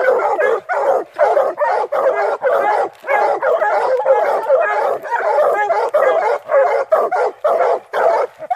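Several hounds barking at the foot of a tree, a fast, overlapping chorus of short barks, two or three a second, without a pause: the treeing bark of hounds that have run their quarry up the tree.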